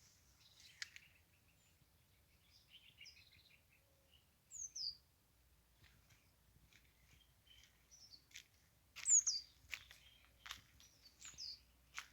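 Small songbirds chirping outdoors: scattered short high calls, with a few quick falling notes. The loudest burst comes about nine seconds in.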